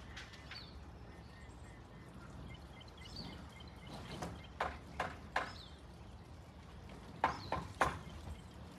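Backyard poultry calling: two quick series of three short, loud calls, the first about four and a half seconds in and the second near the end.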